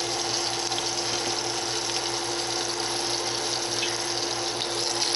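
Steady hiss of hot oil sizzling in a frying pan, with a constant low hum underneath.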